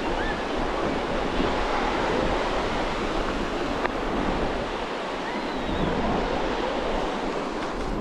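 Sea surf washing steadily onto the beach, with wind buffeting the microphone. A single faint click comes about four seconds in.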